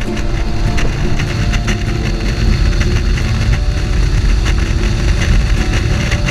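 Wind rushing over the microphone of a camera on a motorcycle riding at highway speed, a loud, low rush with irregular pops of buffeting and the motorcycle's engine running underneath.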